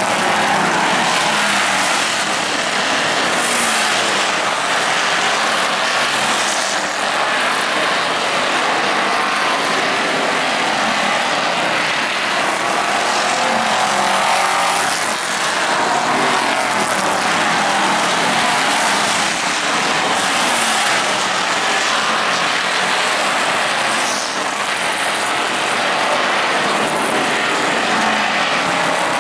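A pack of street stock race cars' V8 engines running at racing speed, a loud continuous roar with engine notes rising and falling as cars pass by.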